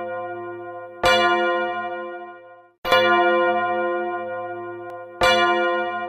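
A church bell tolling slowly. It strikes three times, about a second, three seconds and five seconds in, and each stroke rings on and fades away before the next.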